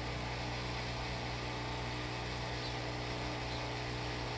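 Mr Cool 4-5 ton inverter heat pump's outdoor unit running in reverse defrost (de-icing) mode: a steady hum with a hiss as the coil sheds its ice.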